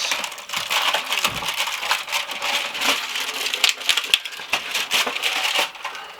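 Crinkling and crackling of a chocolate advent calendar's cardboard and plastic tray as a door is pushed open and the chocolate is worked out, with many small clicks.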